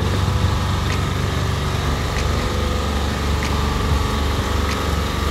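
A steady low engine drone, with faint ticks about every second and a quarter.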